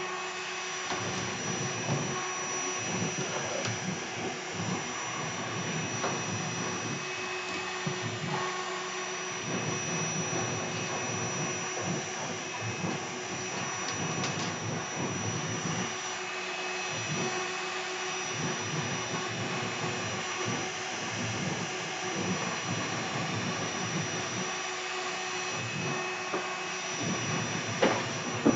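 Air-cooled 2.2 kW spindle on a CNC router running steadily with a constant high whine, while the bit cuts the wood in uneven surges of rougher noise that come and go every second or two. A sharp tick near the end.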